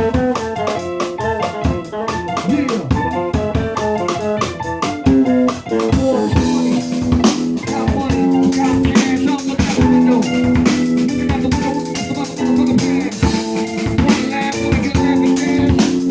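Live instrumental band jam: an organ-toned keyboard and a drum kit playing together. The level dips briefly about six seconds in, after which held chords fill out the sound.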